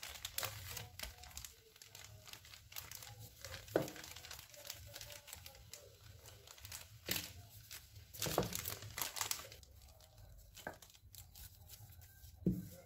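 Wooden rolling pin rolled back and forth over cassava dough on a silicone baking mat, making faint, irregular crinkling and scraping strokes over a steady low hum.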